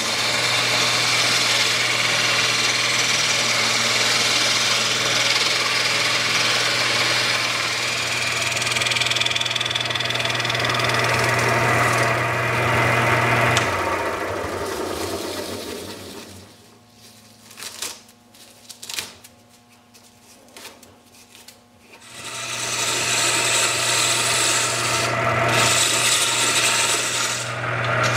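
Rikon 70-100 mini wood lathe running while a hand-held turning tool cuts down a spinning denim-and-epoxy micarta blank: a steady rough scraping over the motor's low hum. Just past the middle the cutting stops for several seconds, leaving it quiet apart from a few knocks, then it starts again.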